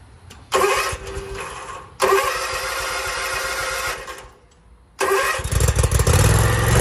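52-inch zero-turn mower's engine cranked on the starter three times. It catches on the third try, about five seconds in, and settles into a steady run. It starts now that the blown fuse has been replaced.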